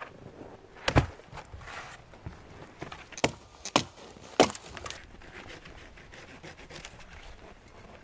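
Wooden knocks and scraping as snow-covered dead logs and branches are handled and set in place, with crunching steps in snow. Several sharp knocks come in the first half, the last about four and a half seconds in, followed by quieter rustling.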